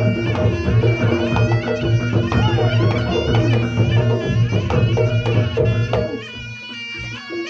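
Traditional Reog Ponorogo-style music: a wavering reed-pipe melody over drums and a steady low pulse, thinning out and quietening about six seconds in.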